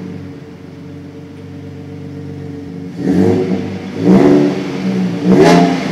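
Ford F-150's 3.3L V6 idling through its aftermarket exhaust, then revved three times in short blips about a second apart, starting about halfway through. It sounds loud and is heard in a concrete underground parking garage.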